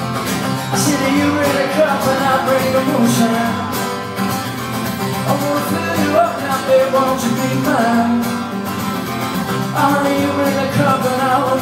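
Live music: an acoustic guitar strummed steadily with singing.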